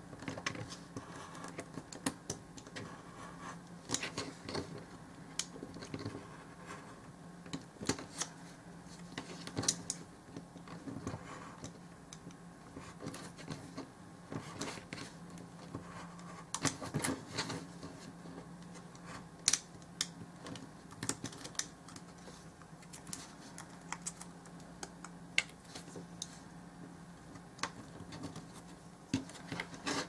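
Craft knife cutting through layered poster board on a cutting mat: irregular sharp clicks and scratches as the blade scores and snaps through the board, over a faint steady low hum.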